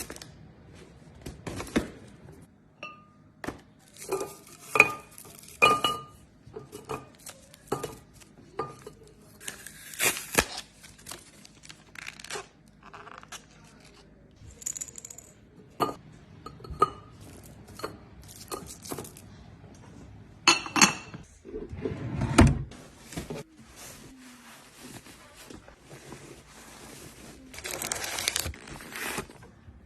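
Glass jars, bottles and containers being handled and set down one after another while a fridge is stocked, clinking and knocking, some clinks ringing briefly like struck glass. A heavier thud comes a little past two thirds of the way through, and a longer rustling hiss near the end.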